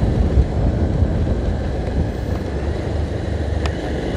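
Steady low rumble of a vehicle's engine and road noise heard from inside the moving vehicle, with one short click about three and a half seconds in.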